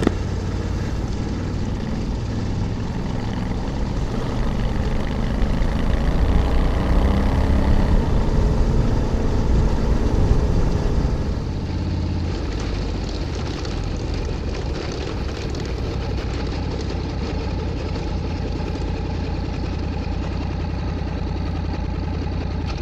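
A Honda Africa Twin's parallel-twin engine runs as the bike is ridden along, with steady road and wind noise. It is louder from about four to eleven seconds in, then settles to an even, lower drone.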